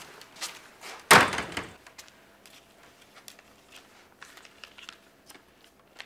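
A wooden door slammed shut about a second in: one loud bang with a short ringing tail. A few faint clicks follow.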